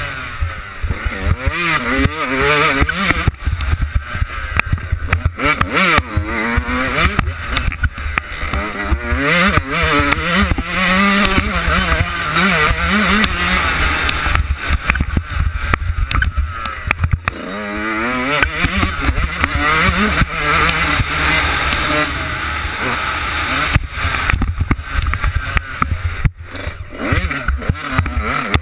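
Yamaha YZ125 two-stroke single-cylinder engine revving hard and backing off over and over, its pitch sweeping up and down through the gears. Heavy wind rumble on the helmet-mounted camera.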